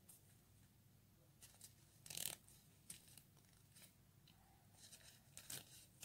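A sheet of paper rustling faintly as it is folded and creased by hand, in a handful of short rustles, the loudest about two seconds in.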